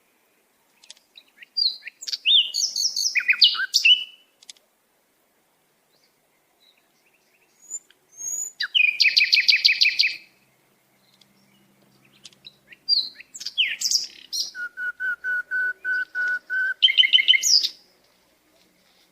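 Sparrow chirping in three bouts of quick, repeated high chirps with short silent gaps between them; the last bout includes a run of even, lower-pitched notes.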